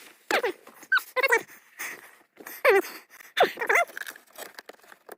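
A dog whining: a string of about six short, high whimpers, each falling in pitch.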